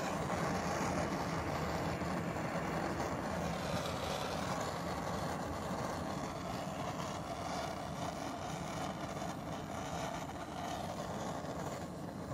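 Handheld gas torch running with a steady rushing hiss of flame, played onto small cups of motor oil to burn them off. The level eases off slightly near the end.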